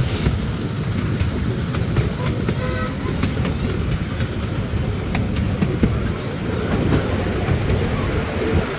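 Miniature park train running along its track: a steady rumble with scattered clicks from the wheels and carriages.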